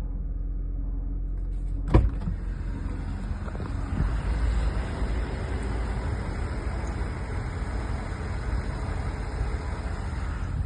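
BMW N46 four-cylinder petrol engine running steadily, making a noise the owner calls strange and cannot identify. A single sharp click about two seconds in.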